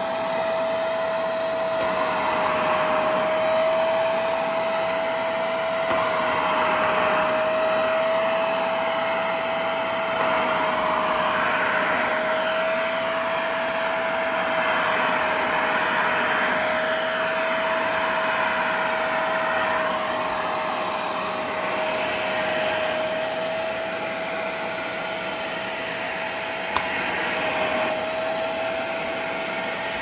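Portable carpet extractor running on suction alone: its motor holds a steady whine while the hand tool is drawn across a carpeted car floor mat, the suction hiss swelling and fading with each pass. A single sharp click near the end.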